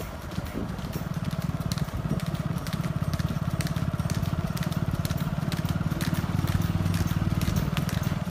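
A vehicle engine running steadily at low speed, with the hooves of a pair of trotting oxen clopping on the asphalt as scattered sharp clicks.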